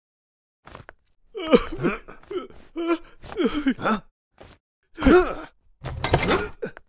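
A cartoon old man's wordless vocal sounds: a run of short sobbing gasps, sighs and groans, their pitch bending up and down, with a pause between bursts and another burst about five seconds in.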